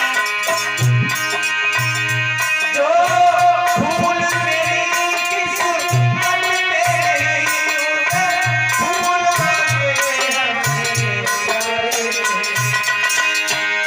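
Ghazal music: a gliding melodic line over a steady rhythm of low drum strokes and a shaker-like rattle.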